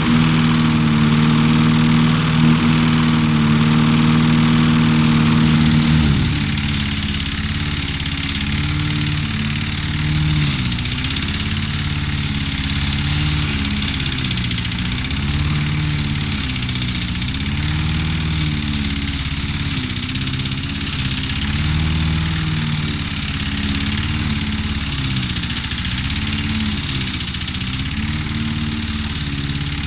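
Small lawn mower engine running: steady for about six seconds, then it drops lower and its pitch rises and falls in regular surges every second or two.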